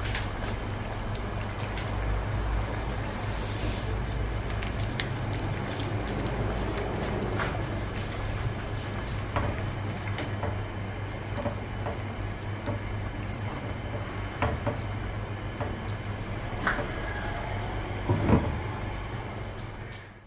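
A pan of pork adobo simmering, with a steady low rumble under small bubbling pops and the clinks of a utensil against the pan. A short hiss comes about three seconds in, and a few louder knocks come near the end.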